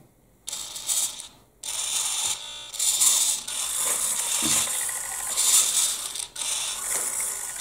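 Steering servo of an RC-converted Bruder CAT telehandler whirring as it swings the front wheels from side to side through the toy's plastic steering linkage. It runs in several spells of a second or two with short pauses between them.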